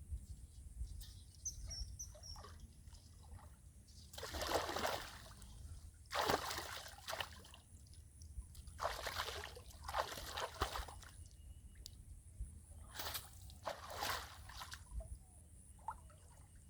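Water splashing and sloshing in about five short bursts, with quieter trickling between them.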